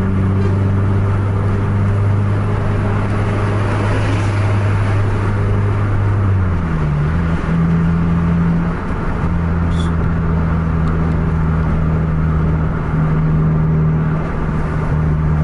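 Car engine running at highway speed with steady tyre and road noise, heard from inside the moving car; the engine note drops and settles at a new pitch about seven seconds in.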